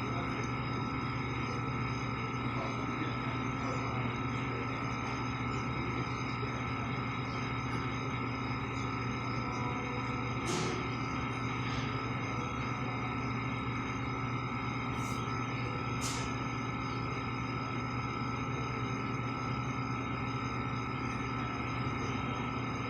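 A steady humming drone made of several fixed tones, low and high, holding at an even level, with a few short high chirps about halfway through.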